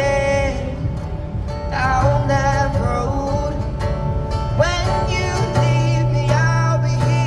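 A male singer singing live while playing an acoustic guitar.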